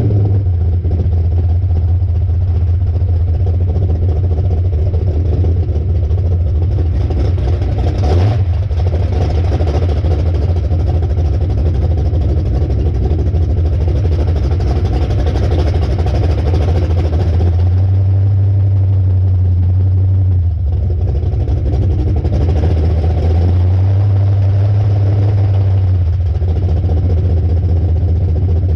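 Engine of a Hallett long-deck flatbottom boat running loud and steady while underway, with water noise off the hull. The engine note shifts twice in the second half as the throttle changes, and there is a sharp knock about eight seconds in.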